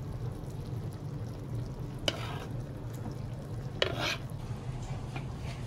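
Metal utensil scraping and scooping through cooked plov in the cooking pot, with two sharp metallic clatters against the pot about two and four seconds in, over a steady low hum.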